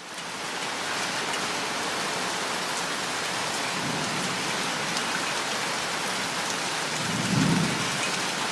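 Steady rain falling, an even dense hiss.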